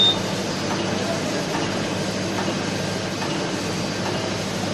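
A machine running steadily: a continuous even mechanical noise with a low electrical hum beneath it.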